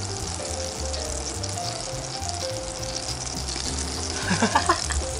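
Eggs sizzling as they fry in a frying pan, a steady hiss. Near the end there are a few short scrapes and knocks from a spatula against the pan.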